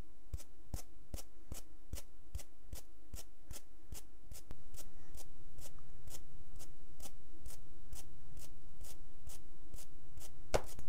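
Footstep sound effect for a walking figure: quick, even taps about two and a half a second, over a low steady hum. Two louder knocks come near the end.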